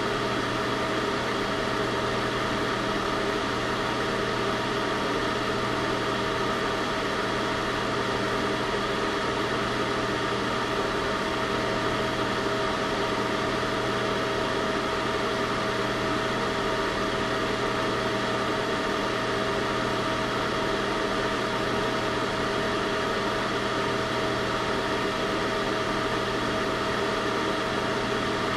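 Heater running steadily: an even rushing noise with a steady hum under it, unchanging throughout.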